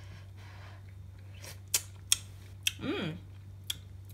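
Someone tasting curry from a spoon: a few sharp lip smacks and clicks, with a short hummed "mm" about three seconds in.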